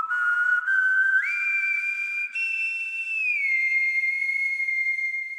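Sustained whistle-like synthesizer tones, several notes held together, stepping up in pitch about a second in and gliding down a little past three seconds in.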